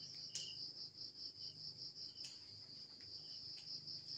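Crickets chirping in a steady, evenly pulsed high trill, with a couple of faint clicks.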